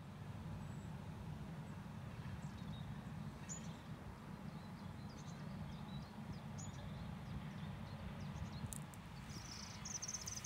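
Songbirds calling in scattered short high chirps, with a louder buzzy trill near the end, over a steady low rumble.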